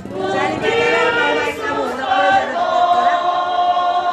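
A group of women singing together without accompaniment, holding a long note in the second half.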